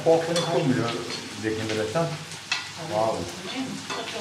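Fish frying in a pan, sizzling, with a couple of sharp utensil clinks as it is stirred.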